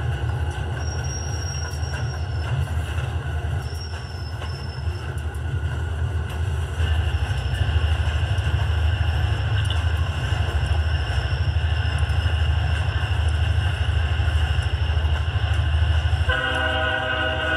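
Diesel freight locomotive sound: a steady low engine rumble that gets louder about seven seconds in, then a multi-note air horn blowing about sixteen seconds in and holding to the end.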